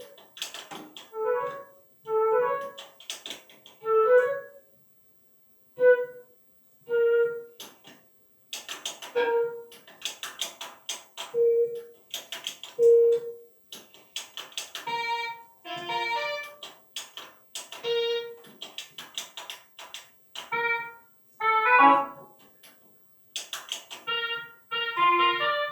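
Background music: a simple keyboard or piano melody of short, plucky notes with sharp percussive clicks. It comes in short phrases separated by brief silences.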